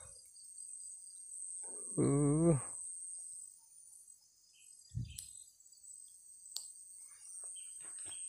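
Steady high-pitched chorus of crickets or cicadas. About two seconds in there is a loud, short call of about half a second whose pitch wavers, and near five seconds a dull thump.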